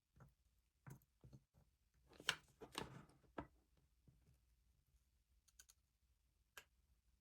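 Faint, scattered clicks and taps of metal tweezers handling a small capacitor on the workbench: a few in the first three seconds or so, then one or two more later.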